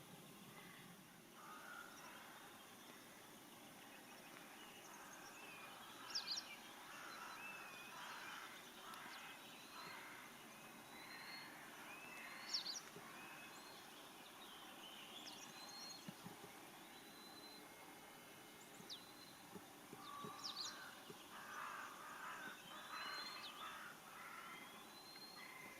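Faint outdoor garden ambience with distant birds calling, short chirps and rougher calls scattered throughout. Two brief sharp clicks stand out, several seconds apart.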